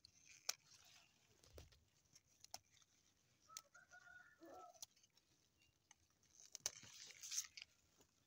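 Faint rustling and scattered clicks of spring onion leaves being picked and handled close to a phone's microphone. A faint animal call sounds about three and a half seconds in and drops in pitch as it ends.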